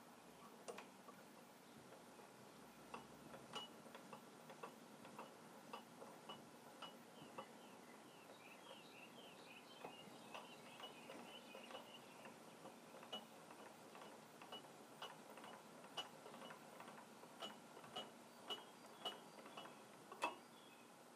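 Near silence with faint, light ticks about twice a second, one louder near the end, and a few seconds of faint high chirping midway.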